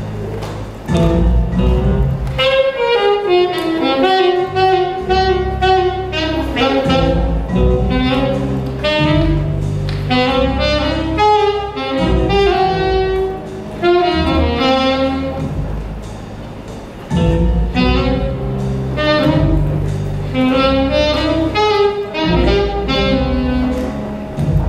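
Saxophone playing a phrased melody, with short breaks between phrases, over an accompaniment with a low bass line.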